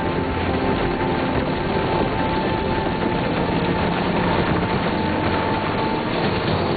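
Steady, loud wash of noise with a few sustained low and mid notes held underneath: a documentary soundtrack of held musical tones over a rumbling bed of sound.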